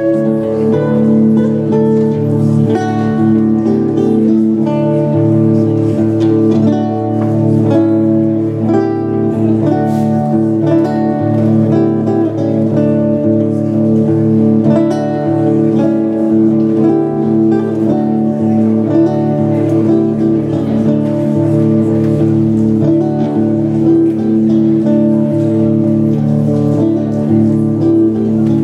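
Instrumental music: a guitar plucking notes over steady held low tones.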